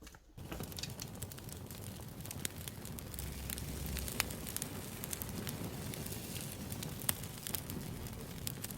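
Campfire crackling: a steady hiss with sharp pops and snaps scattered through it, coming in suddenly just after the start.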